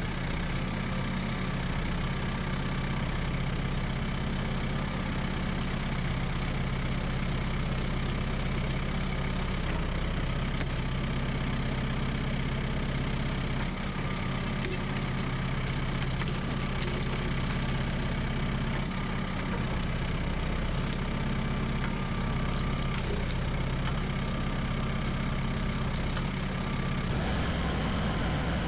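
Kubota tractor's diesel engine running at a steady speed, its note shifting shortly before the end.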